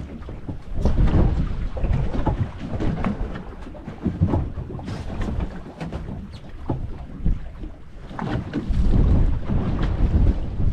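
Wind buffeting the microphone in gusts, a heavy low rumble that swells and eases, with a few short knocks.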